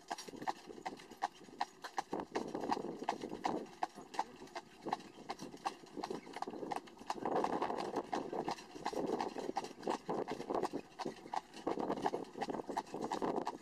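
A carriage horse's hooves clip-clopping on a tarmac lane in a quick, even beat, several strikes a second, as it pulls the carriage. A rolling rumble from the carriage rises and falls beneath the hoofbeats.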